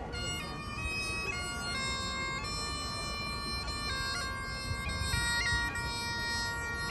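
Great Highland bagpipes played by a lone piper: a tune moving from note to note over the steady drone.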